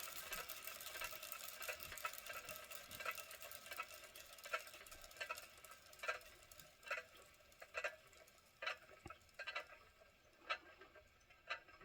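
Clockwork mechanism of a vintage wind-up tin toy running down: a fast clattering ticking that gradually slows and thins out to separate clicks about once a second as the spring unwinds.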